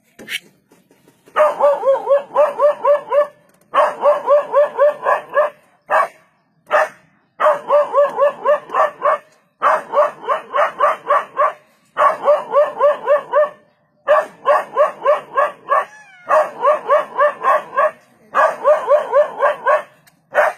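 A dog barking in rapid volleys of about seven barks each, eight volleys with short pauses between: alarm barking at a leopard close by.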